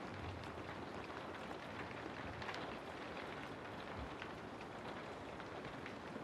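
Steady rain, with many separate drops pattering and ticking over an even hiss.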